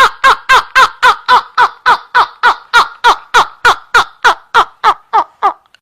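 High-pitched rhythmic laughter, an even 'ha-ha-ha' of about three and a half syllables a second, each falling in pitch. It fades gradually and stops shortly before the end.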